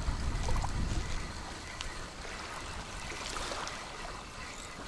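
Wind buffeting the microphone over small waves lapping against the shore, with a few faint ticks.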